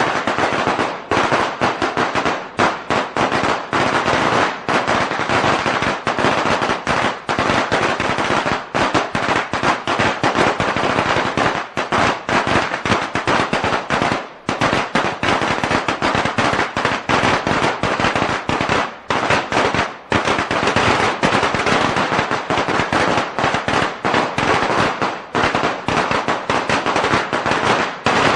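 A long string of firecrackers going off in a dense, rapid, continuous crackle of bangs, with only brief lulls.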